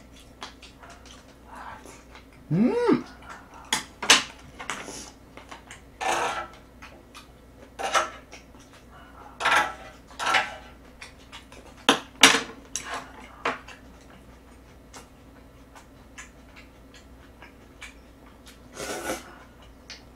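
Chopsticks clicking against small dishes and the grill plate, with chewing and eating noises at irregular intervals, and a short rising-and-falling hum from the eater about three seconds in.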